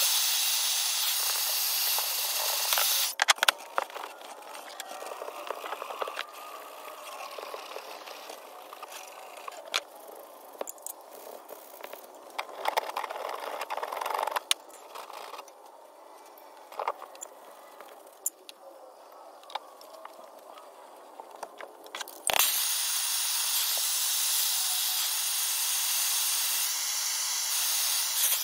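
Handheld gas torch hissing steadily as it heats the soldered joint of an old brass gate valve, stopping about three seconds in. Then scattered clicks, taps and scraping of hands working on the copper pipe. About 22 seconds in, the torch hisses again as it heats the new copper fitting to solder it.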